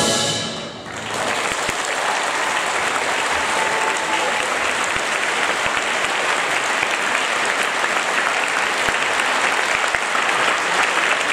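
A concert band's final chord dies away in the hall within the first second, then an audience applauds steadily.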